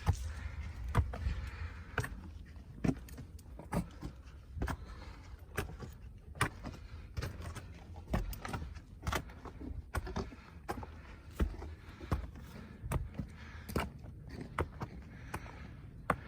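Footsteps in snow on a mountain trail, a sharp step about every second over a low rumble.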